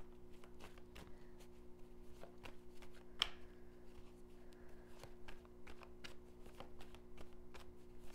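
Tarot deck being shuffled by hand, cards sliding from hand to hand: a soft, irregular run of small card flicks and slaps, one a little sharper about three seconds in. A faint steady hum sits underneath.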